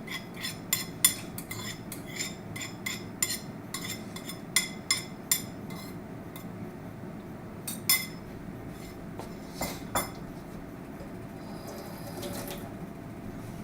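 A metal utensil clinking and scraping against a tin can and a pan as canned creamed corn is scooped out: a rapid run of taps over the first five seconds or so, then a few single knocks.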